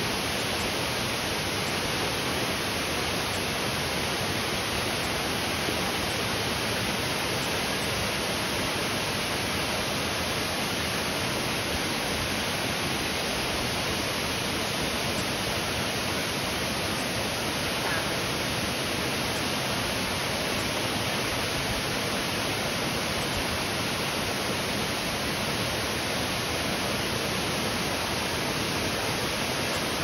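Waterfall pouring into a pool: a steady, unbroken rush of falling water.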